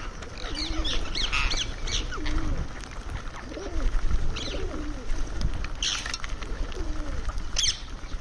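Indian ringneck parrot giving short, high chirps and squawks, a quick cluster in the first two seconds and then single calls every second or two. A low, rising-and-falling cooing repeats about once a second underneath.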